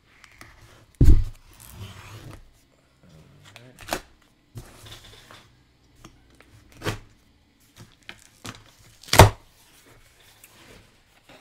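A cardboard shipping box of comics being handled and worked open by its pull-tab strip. A series of knocks, clicks and scuffs, with a low thump about a second in and the loudest, sharp knock near the end.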